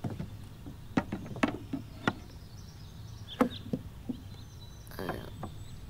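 Sharp wooden knocks and clicks, six or so, spaced irregularly, as a wooden food box is set down and its lid opened, over a faint steady hum.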